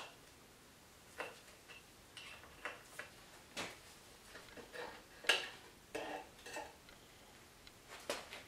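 Irregular metal clicks and clinks of hand tools and parts against a Kawasaki KX250F engine as it is taken apart, with the loudest clink about five seconds in.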